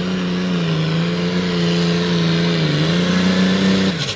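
Limited pro stock pulling tractor's diesel engine running hard at high revs under load while pulling the sled. Its pitch dips briefly about three seconds in and climbs again, then the engine sound drops away suddenly just before the end as the pull is stopped.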